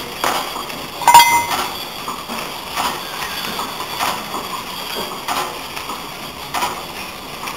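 Belt-driven bench grinder running off an old line shaft, the flat belt and pulleys making a steady running noise with irregular light clanks and knocks. One louder knock rings briefly about a second in.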